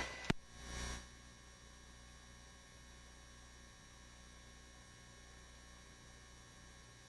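Faint steady electrical hum of the radio audio feed between transmissions. Just after the start there is a single click, followed by a brief soft hiss as the transmission cuts off.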